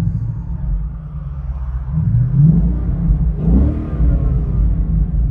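2017 Ford Mustang GT's 5.0 L Coyote V8 idling and revved twice, about two seconds in and again about three and a half seconds in, through an X-Force Varex valved cat-back exhaust with its valves open.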